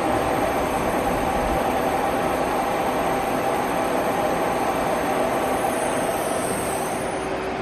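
Citizen M32 Swiss-type CNC automatic lathe running, a steady mechanical noise with a thin high whine.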